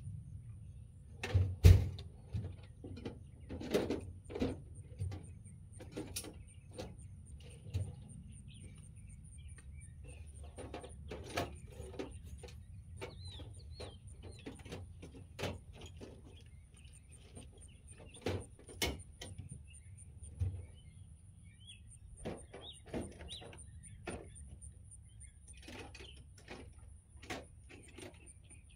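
Scattered light clicks and knocks, the loudest about two seconds in, over birds chirping and a steady high-pitched whine.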